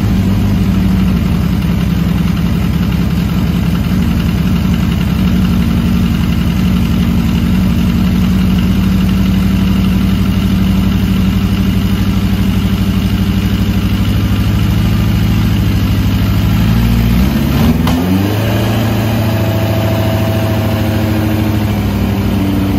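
1981 Yamaha Seca 750 motorcycle's air-cooled inline-four engine idling steadily just after a cold start. About eighteen seconds in, the engine speeds up and then holds at a faster, steady speed.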